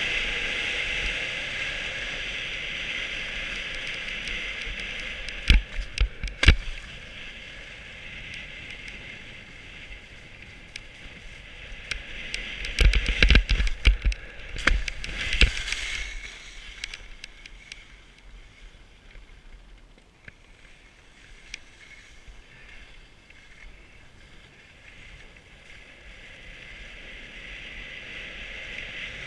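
Skis sliding and scraping over packed snow, a steady hiss that fades for a while in the middle and builds again near the end, with wind on the microphone. Two sharp knocks around six seconds in, and a burst of knocks and thumps about halfway through.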